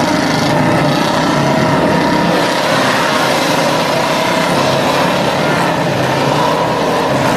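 Several motorcycle engines running together under load as they pull on ropes against one man, a steady, unbroken sound.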